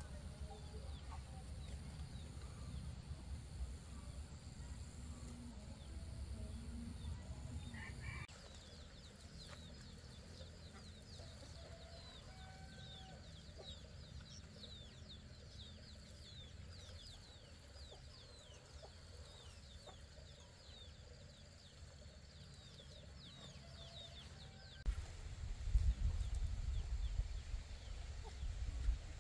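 Chickens clucking, with many short, high, falling calls through the middle stretch. A low rumble comes in near the end.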